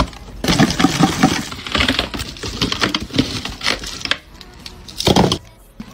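Plastic-wrapped lollipops rustling and clattering against a plastic lollipop jar as they are handled by the handful, with many quick clicks. The clatter dies down about four seconds in, and a short knock follows about a second later.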